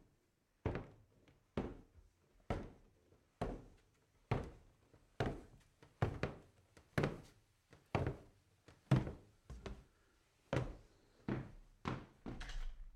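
Boots walking at a steady pace on a wooden path, one thudding footfall about every 0.9 seconds.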